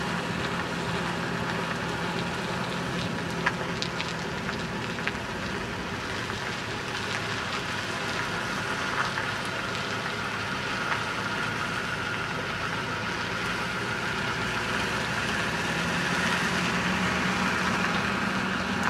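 Steady rushing noise of wind over a helmet-mounted microphone and wheels rolling on pavement while riding, with a low steady engine hum from a pickup truck just ahead and a few faint ticks.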